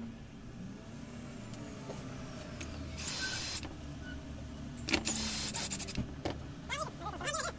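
Cordless DeWalt drill-driver whirring in short bursts of about half a second, about 3 s and 5 s in, then a few shorter pulses near the end, as it drives screws into a Husqvarna 365 chainsaw's housing.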